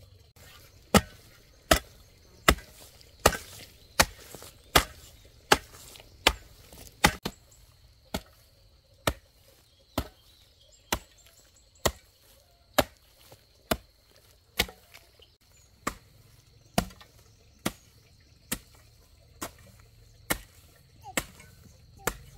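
Steady chopping with a blade on a hard surface, about one sharp stroke a second. The strokes are a little quicker and louder in the first third, then slightly slower and softer.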